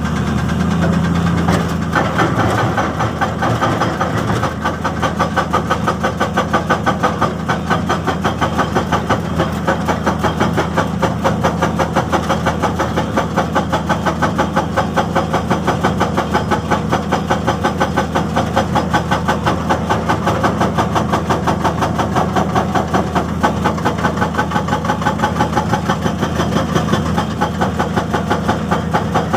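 Excavator-mounted hydraulic breaker hammering rock in a rapid, even rhythm, over the steady running of the excavator's diesel engine.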